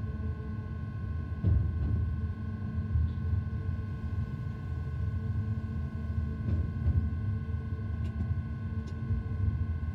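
Cab interior of a BB 27000 electric locomotive under way: a steady low rumble with constant steady whining tones from the locomotive's equipment, and a few faint clicks.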